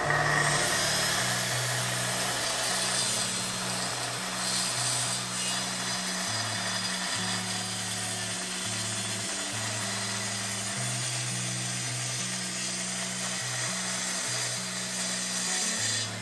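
Festool plunge-cut track saw running and cutting through a wooden boat stringer along its guide rail, stopping just before the end. A music bed with a low bass line plays underneath.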